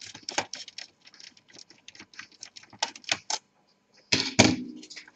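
Quick irregular clicks and rattles of an Acer Aspire 5742 laptop's plastic case parts being handled and worked apart, with a louder clatter about four seconds in.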